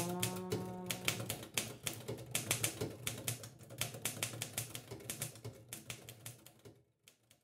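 Typewriter keys clacking in a quick, irregular run that fades away and stops near the end. A last held music note dies away in the first second.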